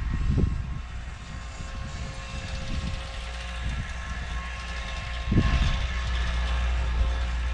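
Four-wheeler (ATV) engine running steadily, a constant low hum with a steady whine above it, and a brief louder low surge about five seconds in.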